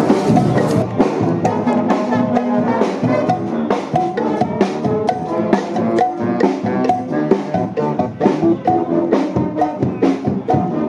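Marching street brass band playing a lively tune: saxophones, trumpets and trombones over a sousaphone, with a steady bass-drum beat.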